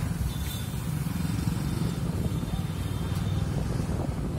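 Steady low rumble of engine and road noise, heard from a motorcycle riding through town traffic with other motorcycles around it.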